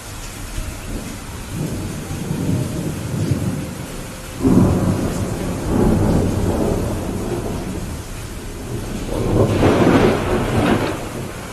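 Steady rain with thunder rolling: low rumbles build from about a second and a half in, with a sudden loud crack-and-roll at about four and a half seconds and another swelling peal near the end.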